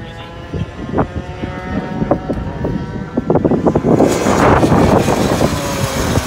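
Racing karts' two-stroke engines running at high revs. A kart comes past close about four seconds in, and its engine note swells to the loudest point before easing off.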